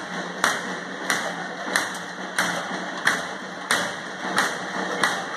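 Steady, evenly paced metallic banging, about three strikes every two seconds, each ringing briefly, over a low steady hum.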